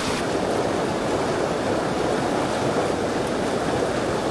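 River water rushing over its bed: a steady, even rush.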